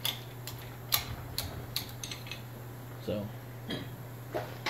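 Light metallic clinks and taps, about half a dozen in the first two and a half seconds, from steel hand tools and cylinder parts being handled, over a steady low hum.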